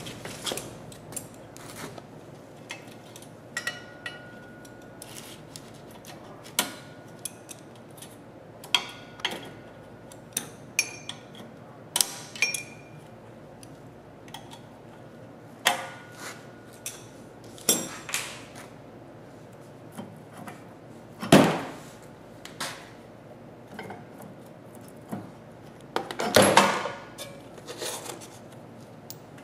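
Scattered metallic clicks, clinks and taps from hand tools and clevis pins being worked out of a fire-truck step's metal casting and arms, with a louder knock about two-thirds through and a short clatter near the end.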